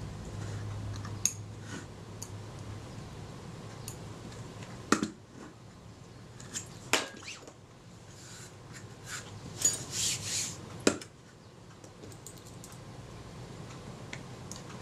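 Small metallic clicks and clinks as tiny screws are handled and set into a Kodak Retina IIIc folding camera's front standard. There are a few sharper taps spread through, and a short scraping rustle about ten seconds in.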